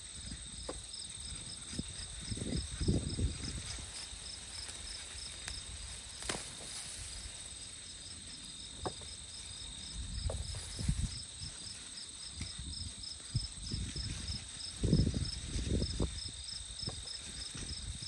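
Crickets and other insects chirping steadily, one in a fast, even pulse. Over them come dull thumps and rustles of digging in garden soil, about three seconds in, around ten seconds and again around fifteen seconds.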